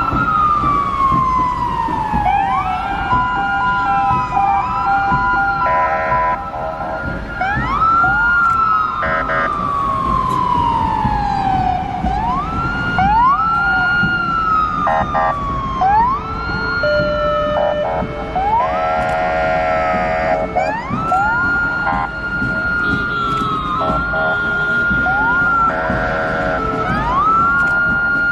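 Sirens of several Japanese fire engines sounding together as they drive in procession. Each siren rises quickly to a high held note, then slides slowly down, and the sirens overlap one another. Several short bursts of a lower, steady horn-like tone cut in, with engine rumble underneath.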